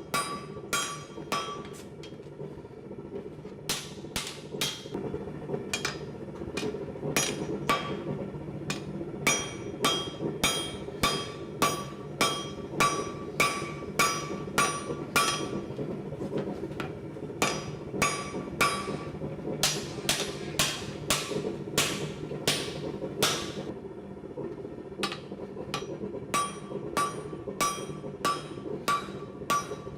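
Blacksmith's hammer striking steel on an anvil, forging the U-shaped eye of a fold-over axe: ringing blows about two a second, with a few short pauses, over a steady low rumble.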